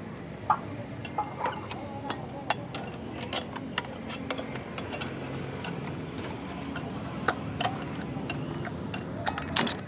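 Irregular sharp clicks and light taps, about one or two a second, over a steady low hum.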